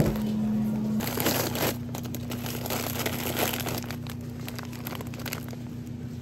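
Plastic bags of frozen shrimp crinkling as they are picked up and handled, starting about a second in and dying away near the end, over a steady low hum.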